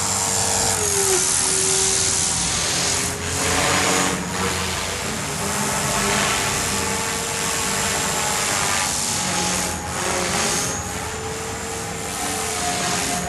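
Hobby-Lobby Dragonus II N-Plus RC helicopter in flight: its engine running with a steady whine over the rush of the main rotor, the pitch dipping and rising as it climbs and manoeuvres.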